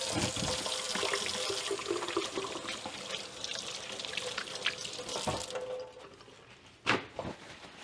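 Hands being washed under a running kitchen tap: the water hisses and splashes for about five seconds, then the tap is shut off. A single sharp knock follows near the end.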